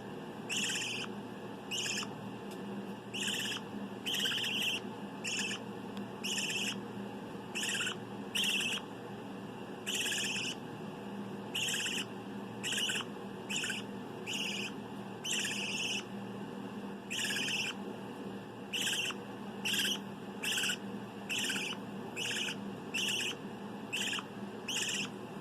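Canary giving short, raspy, hissing chirps over and over, about one a second, at an even pace.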